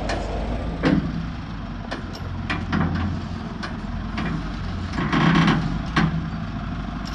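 A steady low machine hum with a series of irregular sharp knocks, as of heavy metal parts being struck or handled, and a longer scraping noise about five seconds in.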